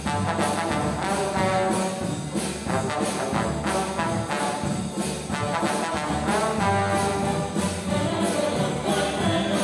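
Youth symphony orchestra playing live, strings and brass together, with a steady pulse.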